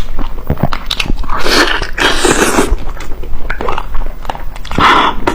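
Close-miked eating sounds: a person biting and chewing food, with many short wet mouth clicks. There is a longer, louder stretch from about one to three seconds in and another near the end.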